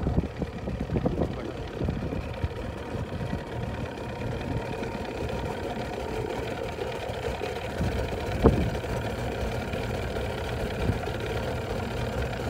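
Small outboard motor running steadily with a constant hum, over low wind and water noise. A single sharp knock about eight and a half seconds in.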